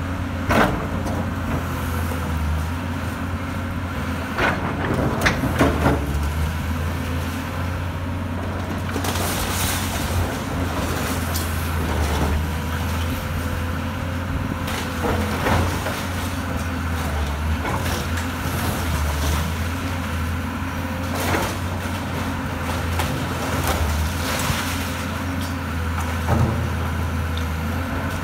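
Kobelco tracked excavator's diesel engine running steadily under load as its arm tears into a brick wall, with scattered cracks and crashes of breaking and falling masonry every few seconds, the loudest a few seconds in.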